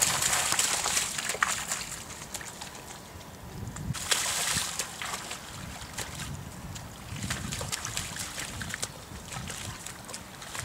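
Lion cubs splashing and sloshing through shallow floodwater and mud, in uneven bursts with scattered small slaps and patters; the splashing is loudest at the start and again about four seconds in.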